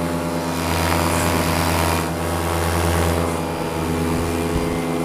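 Paramotor's two-stroke engine and propeller running steadily in flight, one unchanging tone. A rush of air noise over it swells in the first second and eases after about three and a half seconds.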